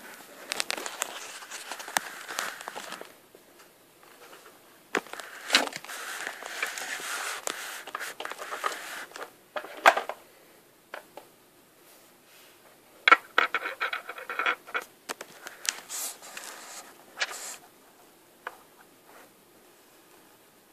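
Rustling, crinkling and scraping of a clear plastic tub and tinsel being handled, in irregular spells with sharp clicks and knocks, the loudest about ten seconds in and again about thirteen seconds in.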